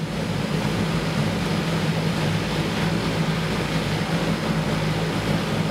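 Floatplane's engines and propellers droning steadily, heard from inside the cabin: a constant low hum under a broad rushing noise.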